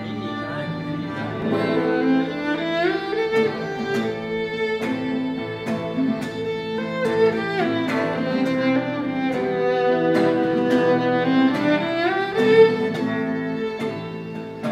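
Violin bowing long held notes that slide up in pitch several times, over guitar notes plucked in a loose, irregular pattern.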